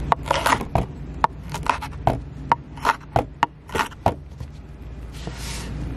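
Kitchen knife dicing a red pepper on a wooden cutting board: a quick, irregular run of blade strikes on the board that stops about four seconds in, followed by a short scrape.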